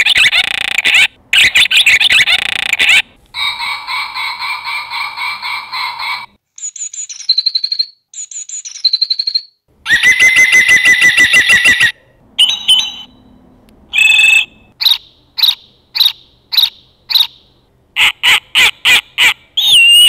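Recorded bird calls of several species, played one after another through the sound units of plush toy birds, among them a barn swallow and a European green woodpecker. It goes from fast twittering, through whistled glides, to runs of sharp repeated notes.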